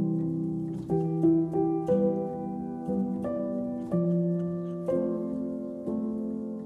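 Background instrumental music: soft plucked notes, a new chord struck about once a second and left to fade.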